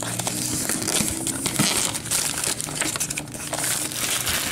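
Clear plastic shrink-wrap crinkling as it is pulled off a cardboard box by hand, a continuous crackle of small clicks.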